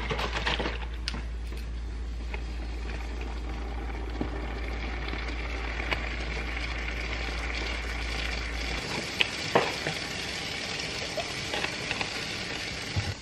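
A steady sizzling hiss of food or drink being prepared, with a few sharp clicks and knocks as containers are handled and opened.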